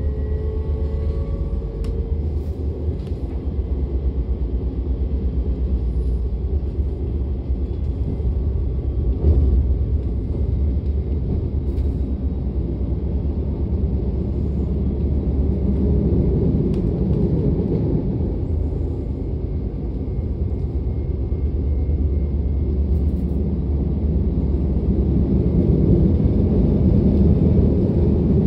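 DB class 425 electric multiple unit running along the track, heard from aboard: a steady low rumble of wheels on rail. A faint rising traction-motor whine fades out about two seconds in, and the running noise grows a little louder near the end.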